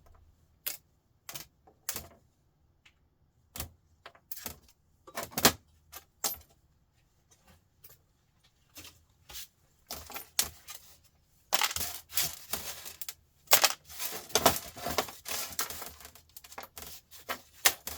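Hand tools and small metal parts clicking and clattering on a workbench: separate sharp clicks and knocks at first, then a busier stretch of rattling and scraping about two-thirds of the way through.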